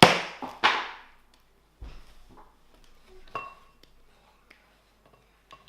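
Squares of Cadbury Dairy Milk chocolate snapped apart by hand: two sharp snaps at the start, then a few small clicks as pieces drop into a bowl, one with a short ring.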